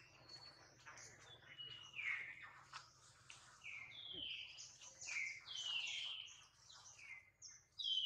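High-pitched chirping calls, repeated about every half second, each one falling in pitch.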